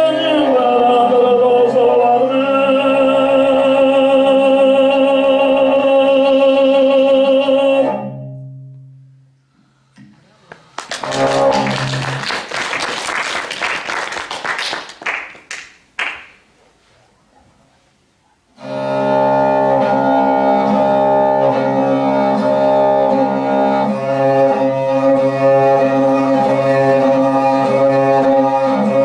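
Tuvan throat singing over the drone of a bowed igil (two-string horsehead fiddle). It fades out about 8 s in. A few seconds later comes a breathy, hissing sound blown through a hand cupped at the mouth, with no clear pitch. The bowed fiddle and throat singing start again about two-thirds of the way through.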